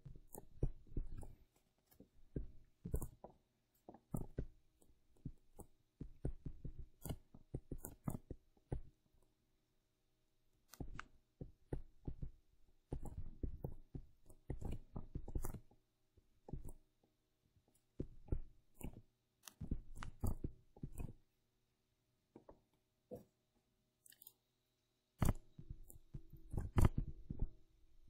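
A stylus tapping and scratching against a tablet screen as equations are handwritten, in bursts of quick taps and knocks separated by short pauses between strokes and lines.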